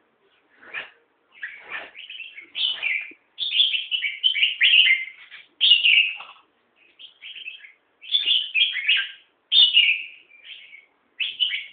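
Young caged red-whiskered bulbul singing: a string of short, bright warbled phrases with brief pauses between them.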